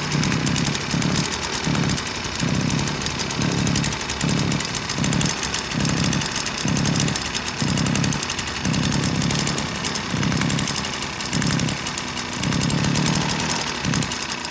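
Echo 315 brush cutter's two-stroke engine running, its sound rising and falling in a regular pulse about twice a second.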